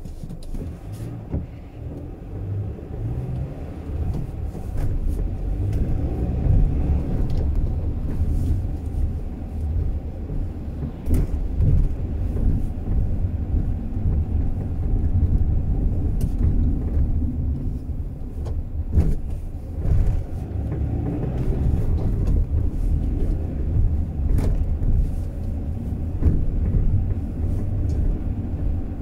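Car being driven on city roads: a steady low rumble of engine and tyres, building a little over the first few seconds, with a few short sharp knocks scattered through.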